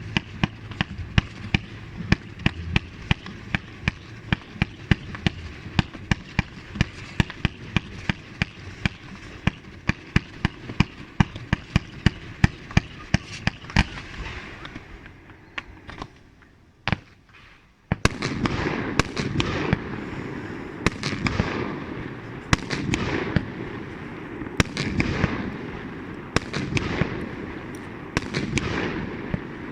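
Fireworks going off: a rapid string of sharp bangs, about four a second, that dies away about halfway through. After a brief lull, a dense crackle starts, with fresh bursts about once a second, each fading away.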